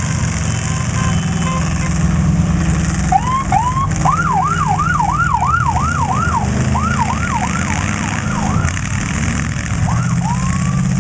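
A siren going in a fast, repeating yelp, about three or four rising-and-falling sweeps a second, over the steady low rumble of demolition derby car engines. The siren starts about three seconds in, breaks off briefly twice and sounds a last couple of sweeps near the end.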